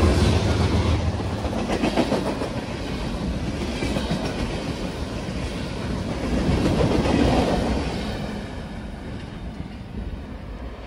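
Freight train rolling past at close range. The locomotives' low diesel hum fades in the first second, leaving covered hoppers and tank cars going by with their wheels knocking over the rail joints. The sound fades away over the last few seconds as the end of the train moves off.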